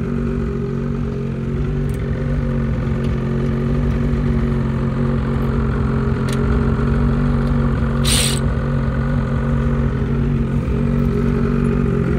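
Lynx Rave GLS 850 Turbo snowmobile's two-stroke twin idling steadily, with a brief hiss about eight seconds in.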